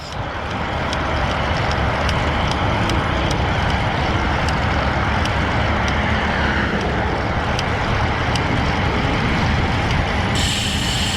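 Steady wind rush on the action camera's microphone while riding a road bike, with road traffic running alongside. Faint light ticks come every so often, and a higher buzz joins near the end.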